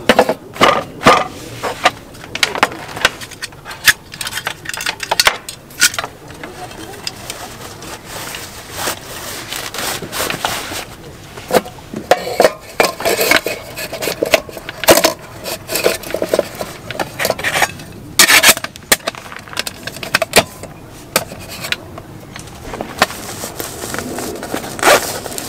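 Metal camping cookware and a gas stove being handled on a wooden table: irregular clinks, knocks and scrapes, with a longer scraping, ringing stretch around the middle.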